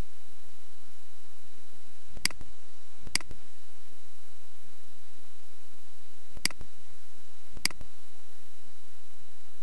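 Computer mouse button clicking four times, in two pairs about a second apart, over a steady background hiss and hum.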